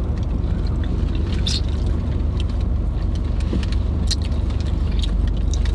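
Steady low rumble of a running car heard from inside its cabin, with a few short clicks scattered through.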